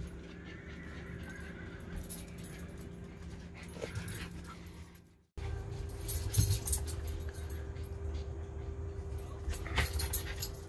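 Pet dogs whining and whimpering over a steady low hum. The sound drops out for a moment about five seconds in.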